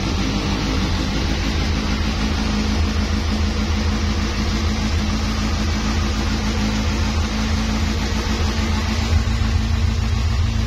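Kawasaki Z1000's 1043 cc four-cylinder engine idling steadily in neutral, a low, even hum with a fast regular pulse.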